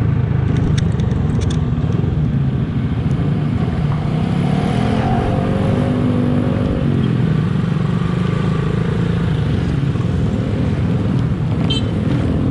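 Motorcycle engine running steadily while riding slowly through traffic, its note rising and falling once near the middle.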